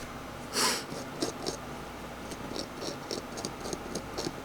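Small tools tapping and clicking lightly and irregularly against a phone circuit board during soldering rework, after a short hiss about half a second in.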